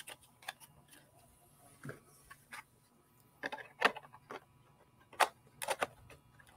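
Plastic model-kit parts clicking and knocking as the engine nacelles are handled and fitted onto a primed Razor Crest model. Scattered sharp clicks, a cluster a little past halfway and a few more about a second later.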